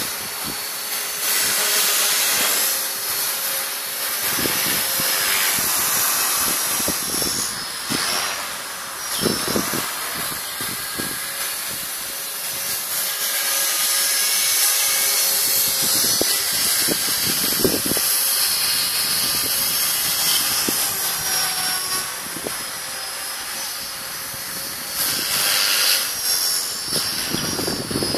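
ALZRC 450-class electric RC helicopter flying overhead: a thin high motor and rotor whine over a rushing blade hiss, rising and falling in pitch as it manoeuvres.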